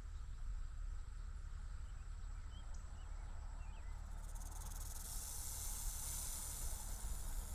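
Outdoor ambience: wind buffeting the microphone as a steady low rumble, with a high steady hiss joining about four seconds in and a few faint chirps just before it.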